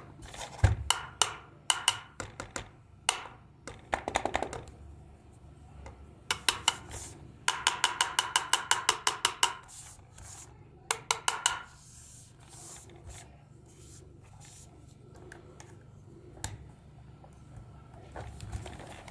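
A gong alarm clock's striker hitting its metal bell, each strike ringing briefly. At first the strikes come singly about half a second apart, then in bursts of rapid strikes, the longest lasting about two seconds at roughly eight strikes a second.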